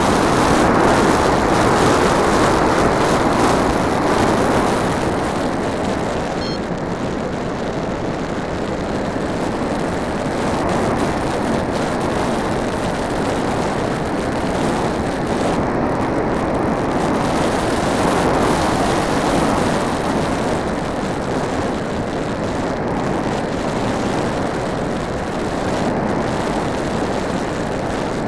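Multiplex Blizzard RC model plane in flight, heard from a camera on board: a steady rush of airflow and propeller noise that swells in the first few seconds and again about two-thirds of the way through.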